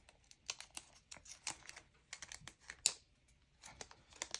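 Plastic packaging crinkling and clicking as small merchandise items are handled: an irregular run of short crackles, the sharpest a little under three seconds in.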